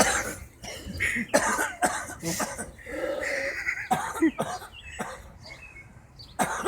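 A man coughing badly: a rapid string of repeated coughs that eases off about five seconds in, then one more cough near the end.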